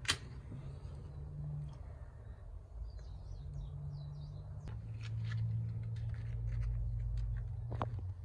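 Scattered sharp clicks and light knocks as a coffee-wood fire is being lit, over a low steady rumble, with a bird chirping a few times about three seconds in.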